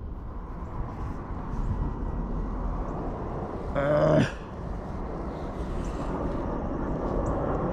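Steady rumble of road traffic from a nearby overpass, with one short pitched sound about four seconds in.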